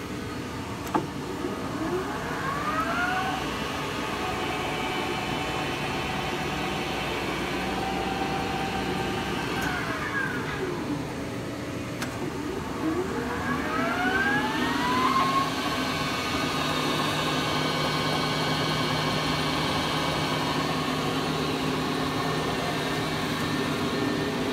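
Lodge and Shipley metal lathe spindle running under power: a click, then a rising whine as the spindle spins up, a steady run, a falling whine as it slows about ten seconds in, then another click and spin-up a couple of seconds later into a steady whine.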